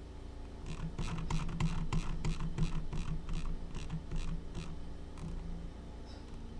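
A run of light plastic clicks at a computer desk, about three a second for some four seconds, over a low steady hum.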